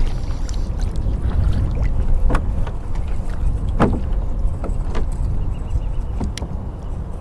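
Steady low rumble of wind and water around a fishing kayak, with a few sharp knocks and clicks scattered through it.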